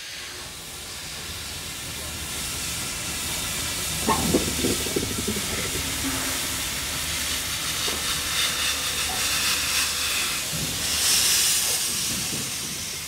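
Steam hissing from the open cylinder drain cocks of Dutch 4-6-0 locomotive NS 3737 as the regulator admits steam to the cylinders, growing louder over the first few seconds.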